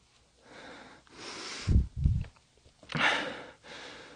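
A person breathing heavily close to the microphone: a series of hissing breaths in and out, with two low thumps around halfway through.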